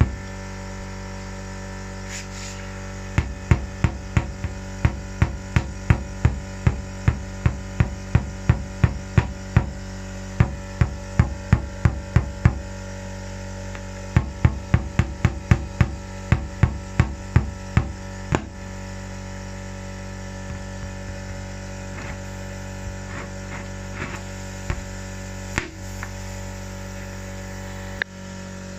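Runs of sharp knocks, about three a second, over a steady low hum. The knocking stops about eighteen seconds in, leaving only a few scattered knocks over the hum.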